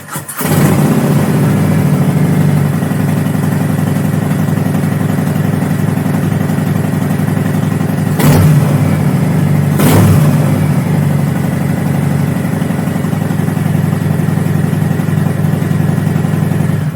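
Harley-Davidson motorcycle's V-twin engine running loudly at idle with a throbbing beat, with two brief louder surges about eight and ten seconds in.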